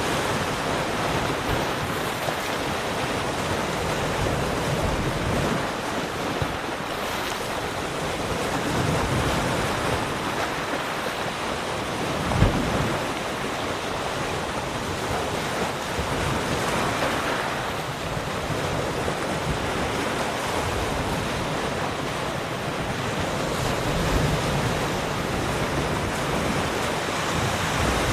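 Ocean surf washing continuously with slow swells in loudness, with wind in the background. A brief low thump about halfway through is the loudest moment.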